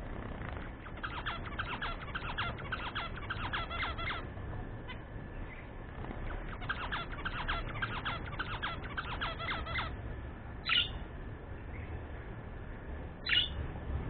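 Budgerigars chattering: two runs of rapid chirping, each about three seconds long, then two short, louder single calls near the end.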